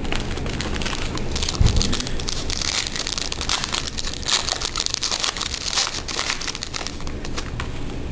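Crinkling and crackling of a foil trading-card pack wrapper and glossy cards being handled, with a low thump about one and a half seconds in.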